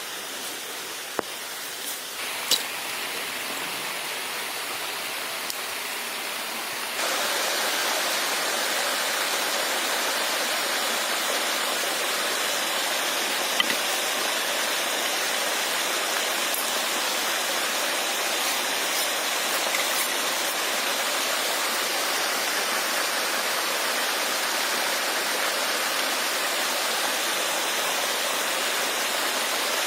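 Steady rushing hiss that jumps suddenly louder about seven seconds in, with a few faint clicks.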